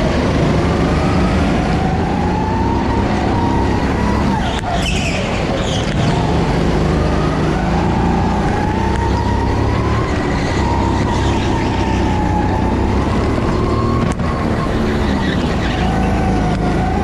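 Go-kart engine running hard through a lap, its pitch repeatedly rising and falling as the kart speeds up and slows down.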